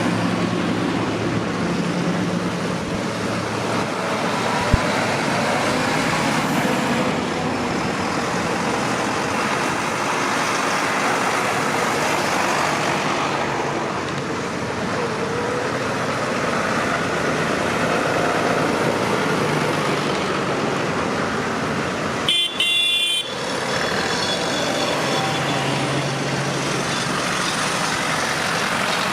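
Tractor engines running steadily as a procession of tractors drives past. About twenty-two seconds in comes a short horn toot.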